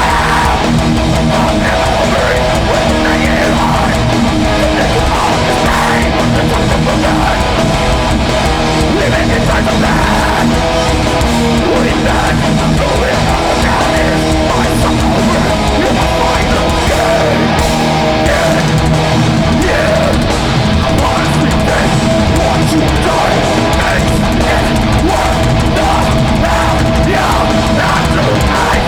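Hardcore metal band playing live, loud and steady throughout, with electric guitars to the fore.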